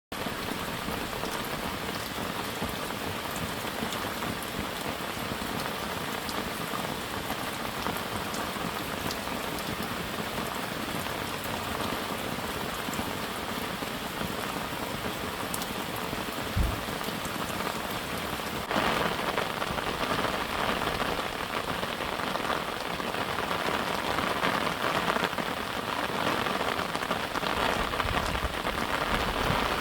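Steady rain falling, an even hiss of drops with a single soft thump a little past the middle. About two-thirds of the way through it turns louder and brighter.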